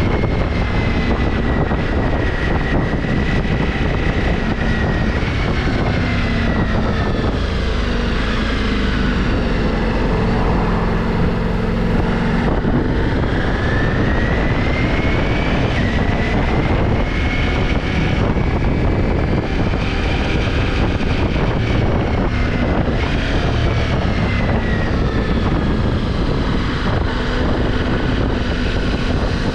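Ducati Multistrada V4 Pikes Peak's V4 engine through its stock exhaust, running without a break over a steady low rumble, its pitch rising and falling again and again as the revs climb and drop.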